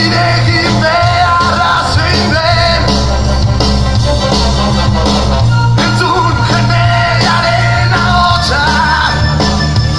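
Live band music of txistu flutes over a steady, repeating bass line, with a man singing into a microphone.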